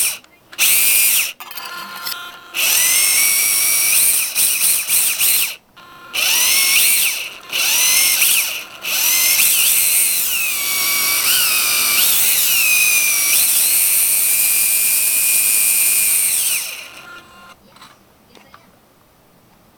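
Small battery-powered electric motor of a homemade toy car running with a high-pitched whine, switched on and off in short bursts, its pitch rising and falling. It then runs steadily for several seconds and stops about three seconds before the end.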